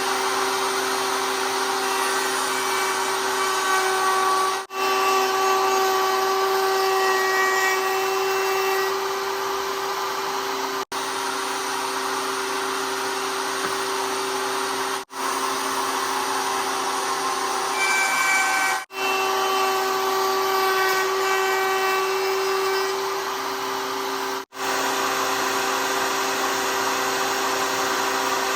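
Router with a dovetail bit running at high speed, cutting the dovetail as the board is fed along the fence. It is a loud, steady whine that cuts out briefly five times.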